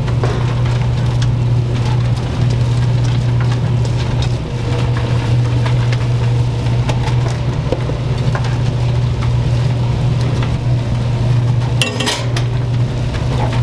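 Restaurant kitchen noise: a loud, steady low hum under a hissing haze, with scattered small clinks of dishes and utensils.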